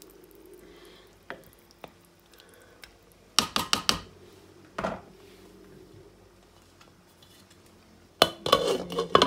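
A wooden spoon stirring a pot of simmering chicken biryani and knocking against the pot several times about three and a half seconds in. Near the end a metal lid clatters loudly onto the pot.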